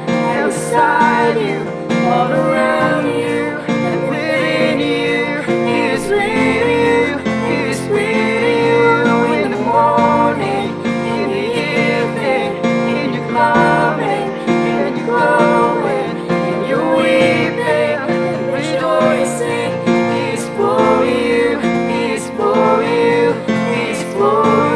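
Worship song played on strummed acoustic guitar and keyboard, with voices singing over it.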